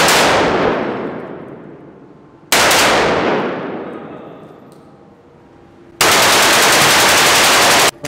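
AR-style carbine fired in an indoor range: two single shots about two and a half seconds apart, each ringing on in the hall's echo, then from about six seconds a rapid, unbroken string of shots that breaks off briefly near the end and starts again.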